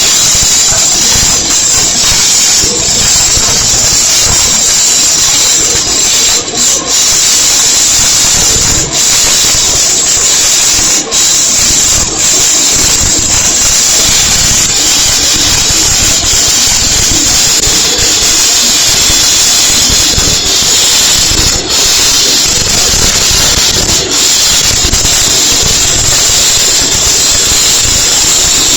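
Wire-feed (MIG) welding arc laying the first pass on a T-joint: a loud, steady hiss with a few brief breaks.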